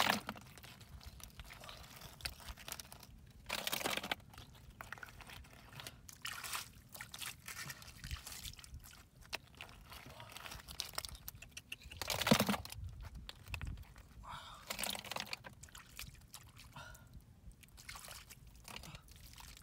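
Hands working through wet mud and shallow water, squelching and sloshing, with snail shells clicking as they are gathered and dropped into a plastic bucket. Many small clicks, with a few louder bursts, the loudest about twelve seconds in.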